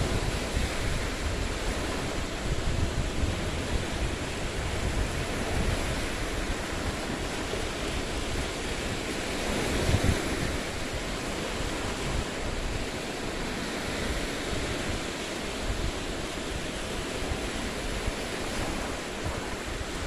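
Lake waves washing and breaking against large shoreline boulders, with wind rumbling on the microphone. A louder splash comes about halfway through.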